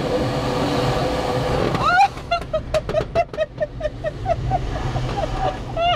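Light aerobatic aircraft's engine droning in the cockpit, cut back suddenly about two seconds in as the plane rolls. A rapid run of short high-pitched chirps, about four a second, follows over the quieter engine.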